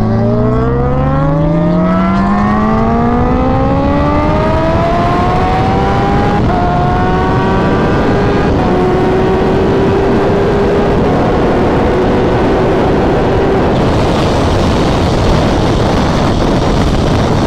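Sportbike engine pulling hard under acceleration, its pitch climbing steadily for about six seconds, a quick shift, then holding a steady high-speed drone. Heavy wind rush on the helmet microphone builds and takes over near the end.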